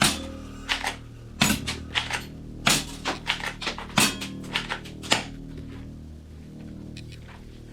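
A string of about a dozen sharp, hard clacks and clicks, as of a plastic toy gun being handled and worked, over background music; the clacks stop about five seconds in.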